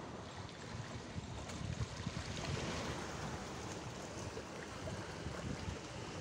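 Small sea waves lapping and splashing among shoreline rocks, with wind rumbling on the microphone.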